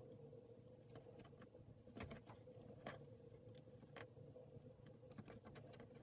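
Near silence: a faint steady hum with a few faint, short ticks and rustles from fingers pressing and folding the edges of an embroidered fabric piece on a wooden table.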